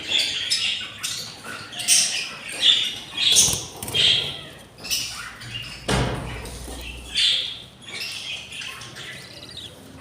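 Budgerigars chirping and squawking in short raspy calls, about one or two a second, with a single thump about six seconds in.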